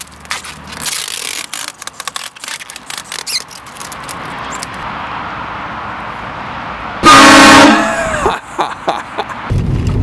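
A car-roof-mounted train horn blasts once, about seven seconds in. It is a very loud, short chord of several tones. Before it come scattered knocks and handling noises, and near the end a low rumble of the car moving starts.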